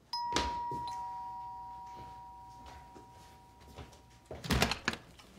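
Two-tone doorbell chime: a high ding, then a lower dong about a second later, both ringing and slowly fading away. Near the end come a few sharp clacks as the front door is handled and opened.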